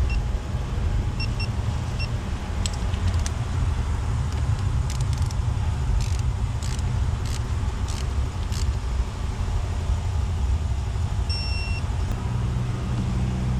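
Small screws being torqued down with a torque wrench: a run of evenly spaced sharp clicks in the middle, and short electronic beeps, a few quick ones early on and one longer beep near the end as set torque is reached. A steady low hum lies underneath.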